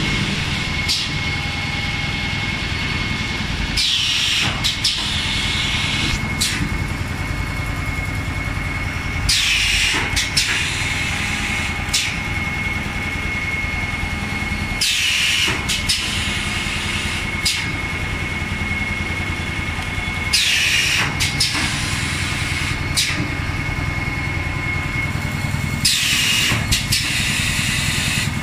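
Automatic three-cavity PET bottle blow molding machine running: a steady mechanical hum with a thin high tone, broken five times, about every five and a half seconds, by a loud hiss of compressed air, with pneumatic clicks, as each blowing cycle vents.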